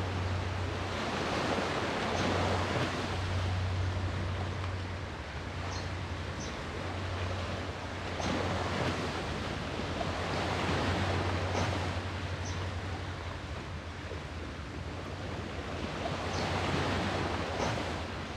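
Sea waves surging and washing ashore, the surf swelling and ebbing about three times, over a steady low rumble.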